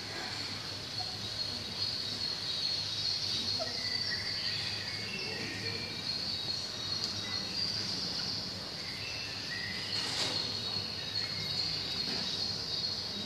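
Crickets chirping in a steady, high-pitched trill, with a few faint short chirps and a brief click about ten seconds in.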